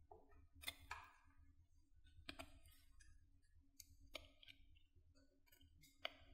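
Knife carving a bar of soap: several short, faint scraping cuts at irregular intervals as slivers are shaved off.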